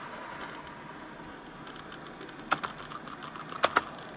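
Large chemical fire burning with a steady rushing noise, broken by sharp cracks: a pair about two and a half seconds in and another pair about a second later.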